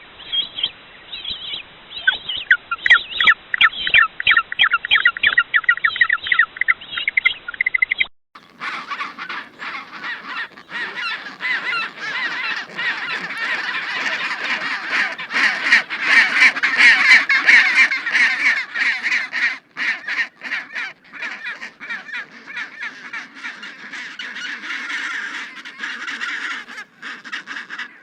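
Penguins calling in rapid, repeated honking cries. After about eight seconds it cuts to a different recording: a dense chorus of many penguins calling at once, as in a colony.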